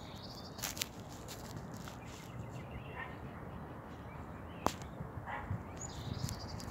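Outdoor pond ambience with a steady low rumble, a small bird's short chirping phrase near the start and again near the end, and a few short sharp animal calls scattered through, the loudest about two-thirds of the way in.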